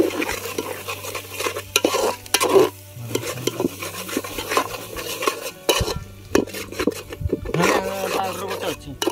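A spatula stirring and scraping thick chicken curry masala around a metal pot in irregular strokes, the masala sizzling as it fries.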